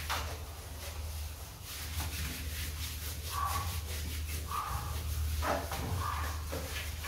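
Rottweiler puppy giving three or four short whines, starting about three seconds in, while hands rub shampoo lather through its wet coat. A steady low hum runs underneath.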